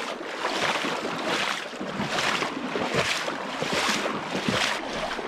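Legs wading through a shallow, stony brook, the water splashing and swishing in surges roughly once a second with each stride.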